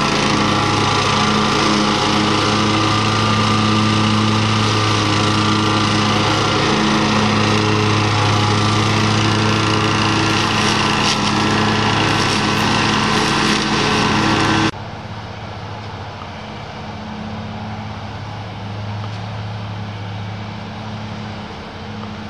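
Riding mower engine running steadily while its deck-mounted DMT 16 S string trimmer cuts grass close by. About two-thirds of the way in, the sound drops suddenly to a quieter, duller drone of the same mower heard from farther off.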